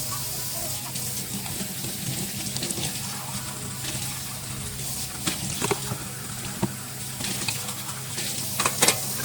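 Tap water running steadily into a kitchen sink while dishes are washed, with several sharp clinks of dishes knocking together, the loudest near the end.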